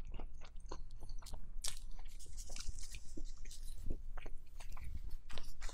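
A person chewing a mouthful of food close to a lapel microphone: a steady run of short, wet clicks and smacks from the mouth.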